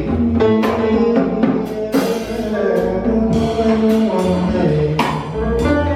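Jazz band playing an instrumental passage between sung vocal lines, with a bass line and a drum kit keeping time with cymbal strokes.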